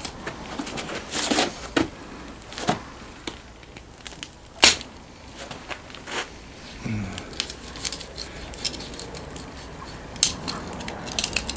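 Knife cutting through a piglet carcass's leg at the joint: scattered cracks and snaps of cartilage and sinew, one sharp crack about halfway through and a quick run of crackles near the end.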